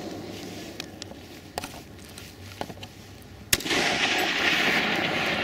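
A single rifle shot about three and a half seconds in, a sharp crack fired at a 500-yard target, followed by a steady hiss.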